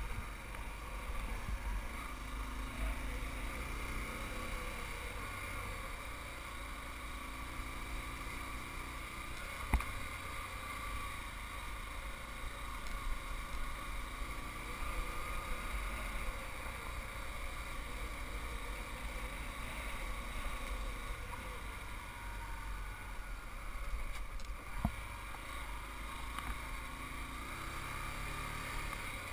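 Small motorbike engine running at a steady pace over a rough trail, its pitch drifting gently, over a low rumble. Two sharp knocks stand out, about ten seconds in and again near the end.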